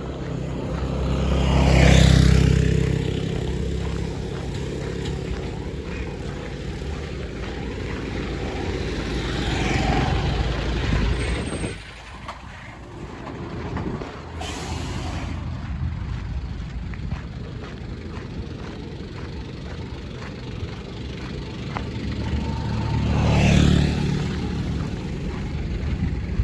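Road traffic: vehicles drive past one after another, with a steady low engine rumble swelling and fading as they pass, about two seconds in, around ten seconds, and again near the end.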